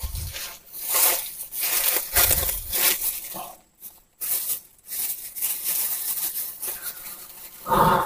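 Irregular bursts of rustling and crackling with a few low thumps, the sound of someone moving and handling things among leaves and brush.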